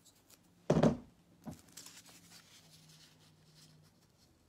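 A single dull thump about a second in, then a lighter tap and faint rustling as a paper strip is handled and pressed onto a painted globe.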